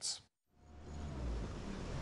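Open-sea ambience: a steady rushing noise with a low rumble, fading in about half a second in after a brief dead silence.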